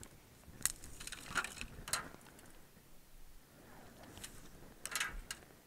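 Pieces of mesquite lump charcoal clinking and rattling against each other and the aluminium foil pan as they are picked through by hand: about five short, separate clatters.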